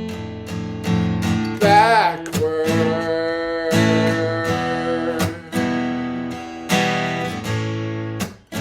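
Martin GPCPA4 steel-string acoustic-electric guitar strummed in steady chords, with a sung note on the word "backward" wavering with vibrato about two seconds in.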